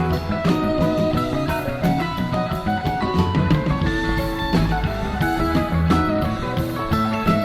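A live rock band playing an instrumental passage, with electric guitar lines over bass and a drum kit.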